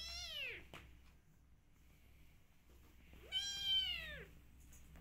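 A cat meowing twice: a short meow right at the start and a longer, louder one a little over three seconds in, each rising and then falling in pitch.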